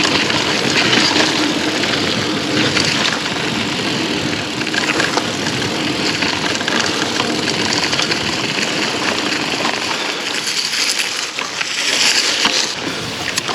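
Mountain bike rolling on a gravel fire road: steady tyre noise with constant fine rattling and clicking from the bike over the loose surface.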